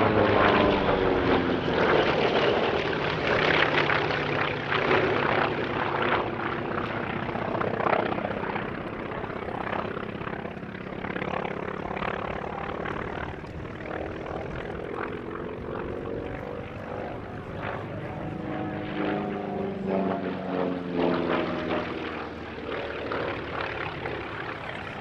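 P-51 Mustang's Merlin V12 piston engine in a fast low pass, its pitch dropping as it goes by. A second, quieter pass follows, its pitch rising and then falling again.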